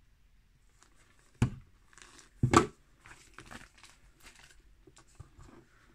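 Cardboard gift box being handled: two sharp knocks about a second apart as the lid is set down, with crinkling of paper packaging around and after them.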